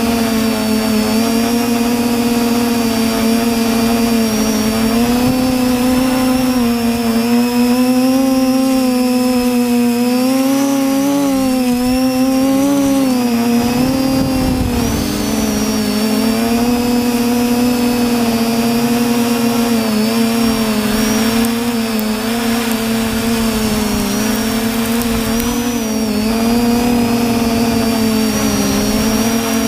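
TBS Discovery quadcopter's four brushless motors and propellers whining steadily in flight, heard from on board. The pitch wavers up and down with the throttle, dipping and wobbling most about halfway through.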